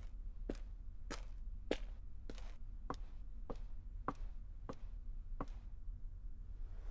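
Footsteps at a steady walking pace, about nine evenly spaced steps that stop about five and a half seconds in, over a low steady hum.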